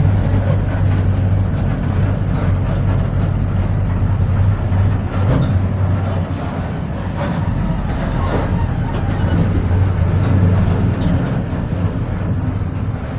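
Volksbus 17-230 OD bus under way: its diesel engine runs with a steady low drone, over a continual clatter of rattles and knocks from the bus body.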